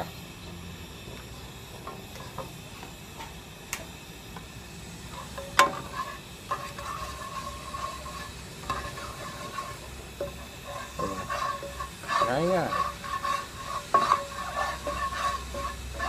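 A plastic spatula stirring and scraping cooking oil around a nonstick wok as it heats on a portable gas stove. There are a couple of sharp taps first, then uneven scraping strokes that get busier from about five seconds in.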